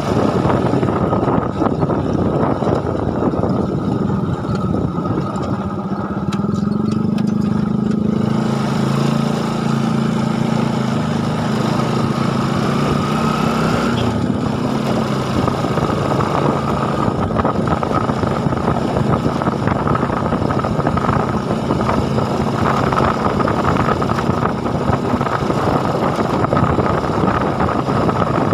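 A motor engine running continuously, its pitch shifting up and down as it speeds and slows, with wind-like noise over it.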